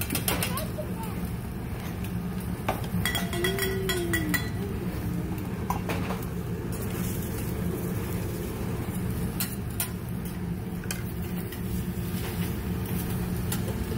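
Restaurant table clatter: scattered clinks of metal utensils and dishes over a steady low hum.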